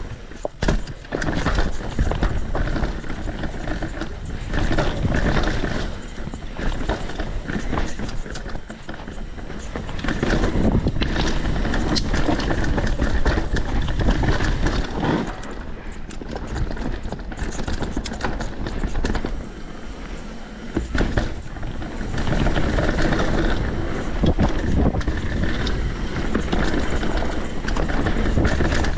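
Santa Cruz V10 downhill mountain bike descending a rough trail at speed: tyres rolling over dirt and rocks with the bike rattling and knocking over the bumps, and a heavy rumble of rushing air. It grows louder about ten seconds in and again near the end.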